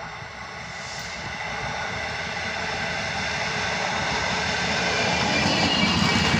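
MAN diesel railcar train approaching and drawing into the station, its diesel engine and running gear growing steadily louder as it comes alongside.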